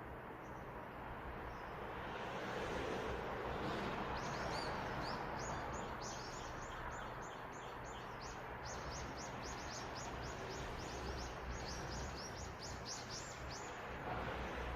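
A bird calling a long series of quick, high chirps, about four a second, starting about four seconds in and stopping near the end, over steady outdoor background noise.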